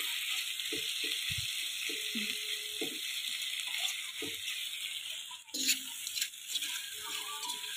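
Sliced sausages and onions frying in a pan, a steady sizzling hiss with crackle. About five and a half seconds in the hiss breaks off briefly, and a few sharp clicks and knocks follow.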